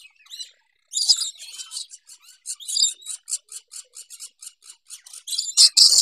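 Lorikeets chattering: a rapid run of short, high-pitched chirps, about five a second, with louder screechy bursts about a second in and again near the end.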